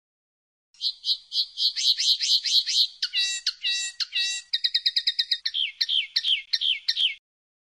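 Common linnet singing one varied phrase: a quick run of repeated short notes, then three falling notes, a fast trill and a string of falling notes. It starts about a second in and stops abruptly near the end.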